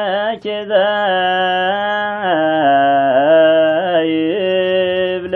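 Solo male voice chanting Ethiopian Orthodox zema, a Ge'ez hymn to the Virgin Mary, in long held notes that bend and waver in pitch. The phrase ends right at the close.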